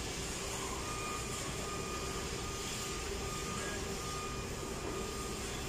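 Steady background hum of a factory workshop, with a faint high tone sounding on and off through the middle.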